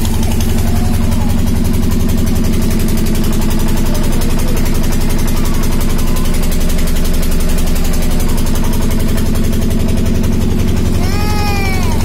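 Engine of a tubewell water pump running steadily with a fast, even chugging, with water gushing from the pump's hose.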